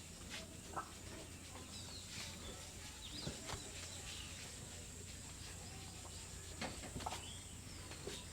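Birds calling faintly: scattered short chirps and calls, with a few brief knocks in between.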